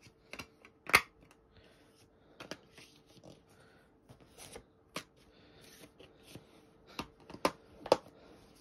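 Plastic DVD cases being handled: a sharp click about a second in, a few lighter clicks through the middle, and three clicks close together near the end, with soft rustling in between.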